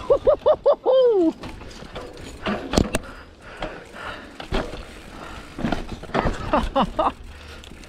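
Mountain bike rattling and knocking over roots on a dirt trail, with one sharp knock about three seconds in. A rider's voice gives a quick run of short high whooping calls at the start and again near the end.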